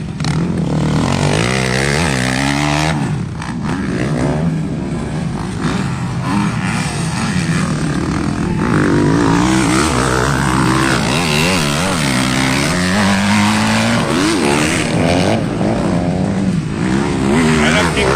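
Several motocross bikes revving on a dirt track, their engine pitch rising and falling over and over as the throttles open and close. One bike passes close partway through.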